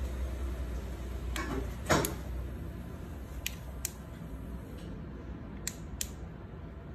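A handheld plastic flashlight lantern being handled, its switch clicking sharply several times, mostly in quick press-and-release pairs, with one louder knock about two seconds in.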